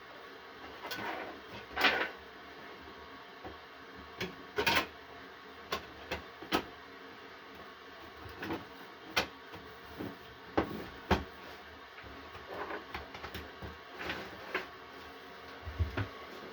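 Irregular clicks, knocks and short scrapes of hard parts being handled, the sharpest around two seconds and eleven seconds in, over a faint steady background.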